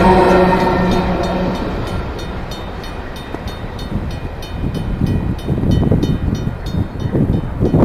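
Empty freight train behind three CSX diesel locomotives rolling past. A steady pitched tone from the locomotives fades over the first second or so. The cars then go by with regular wheel clicks over the rail joints and a rumble that grows louder after about four seconds.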